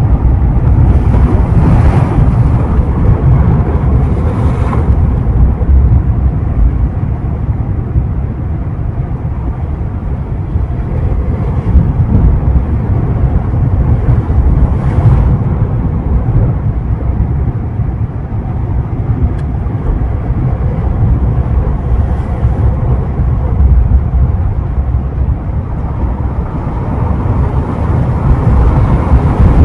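Sea waves at the shore, with wind buffeting the microphone into a heavy, steady low rumble; a few brief hissing washes of surf rise above it.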